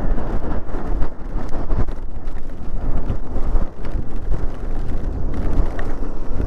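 Wind buffeting the microphone while riding a Daymak Pithog Max electric dirt bike on wet roads: a loud, steady low rumble that wavers in level.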